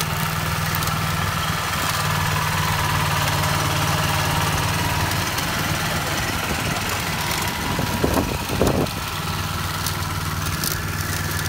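Lawn mower engine running steadily, with a brief louder rumble about eight seconds in.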